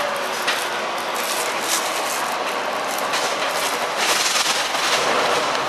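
Neoplan N4426/3 bus under way, heard from inside near its ZF 5HP602C automatic gearbox: steady drivetrain and road noise from the MAN D2866 diesel and running gear, with scattered body rattles and clicks. It gets a little louder about four seconds in.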